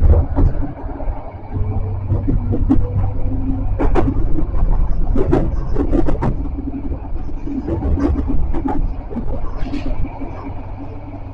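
Tram running along its track, heard from inside the car: a steady low rumble of motors and wheels with irregular sharp clacks and rattles, easing off a little near the end.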